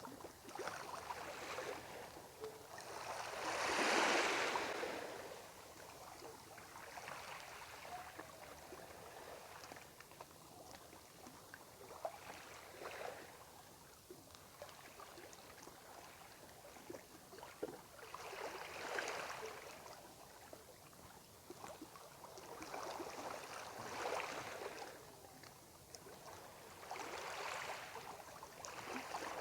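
Water lapping and washing against a boat's hull, in slow swells every few seconds, the biggest about four seconds in.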